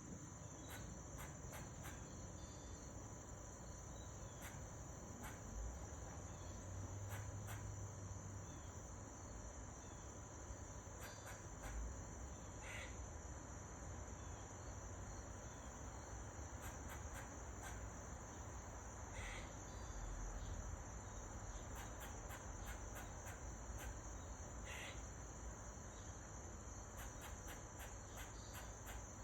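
A squirrel calls three times, short calls about six seconds apart, over a steady high-pitched insect chorus like crickets, with scattered faint clicks.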